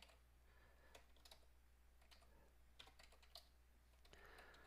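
Faint, irregular keystrokes on a computer keyboard, typing.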